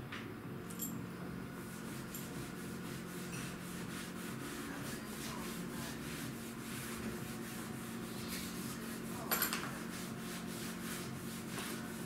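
Hand scrubbing at a kitchen worktop: quick, regular rubbing strokes, about three a second, over a steady low hum, with a sharper clatter about nine seconds in.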